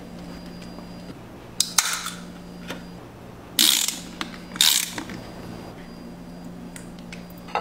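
Metal hand tools rasping and clicking: three short rasping strokes, about two, three and a half and four and a half seconds in, over a steady low hum, and a sharp click near the end.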